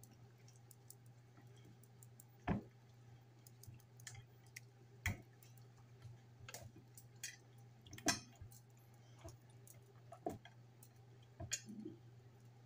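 Spoon and hands seasoning raw chicken in a glass baking dish: scattered clicks and taps, four louder knocks spread through, with soft squishing, over a steady low hum.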